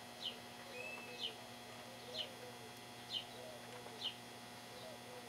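A bird chirping faintly in the background, five short falling chirps about once a second, over a faint steady hum.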